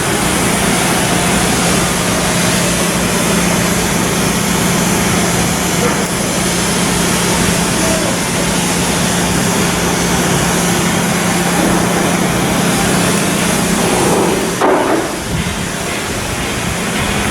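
Steady, loud shipyard work noise: a dense mechanical wash over a constant low hum, with a brief louder clatter about fifteen seconds in.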